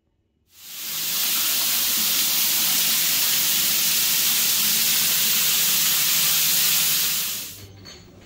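Overhead rain shower head running, a steady hiss of water spraying down. It comes on about half a second in and cuts off near the end.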